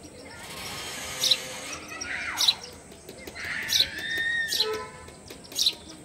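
House sparrow chirping at a nest box: short, sharp chirps repeated about once a second.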